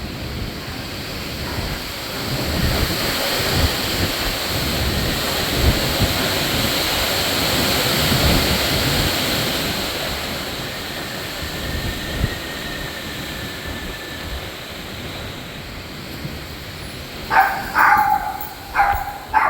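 Storm wind gusting, a rushing noise that swells for several seconds and buffets the microphone, with a faint thin whistle on the wind for a few seconds in the middle. Near the end a dog barks several times.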